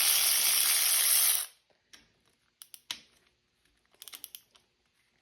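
Cordless ratchet motor running with a loud, even whirr, then cutting off sharply about a second and a half in. After it come a few light clicks and taps of the tool and socket being handled.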